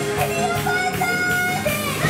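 Live pop band playing an upbeat song on drum kit, electric guitar and saxophone, with a steady beat and held notes.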